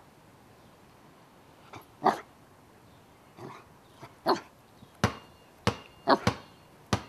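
A small dog giving a series of short barks, spaced irregularly and coming faster toward the end.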